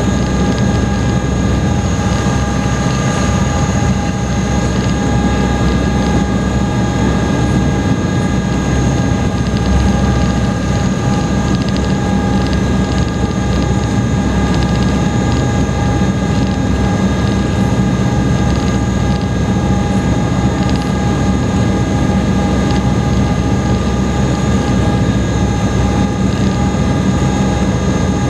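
A high-speed passenger ferry's engines running steadily at cruising speed, heard inside the passenger cabin: a constant low rumble with several steady whining tones over it.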